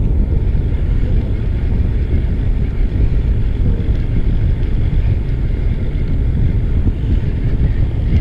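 Steady low rumble aboard a small fishing boat at sea: wind buffeting the microphone together with the boat's running noise, with no distinct knocks or strikes.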